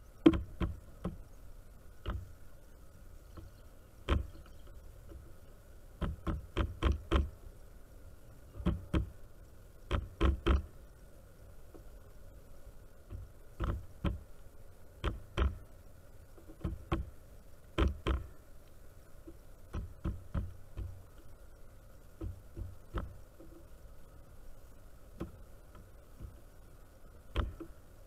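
Irregular sharp knocks of beaks pecking on a wooden platform feeder strewn with sunflower seeds, sometimes in quick runs of three or four, from a pileated woodpecker and an American crow feeding.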